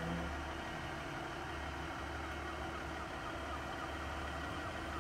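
Class 150 Sprinter diesel multiple unit's Cummins underfloor diesel engines idling steadily as the train stands at the platform.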